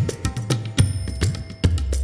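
Background music with a steady beat: heavy bass and sharp drum hits.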